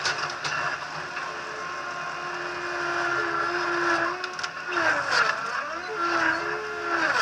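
TCM 706 loader's engine running steadily, then revving up and down several times in the second half, its pitch rising and falling.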